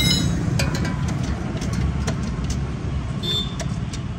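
Motorcycle engine idling steadily, with a few light clicks scattered over it.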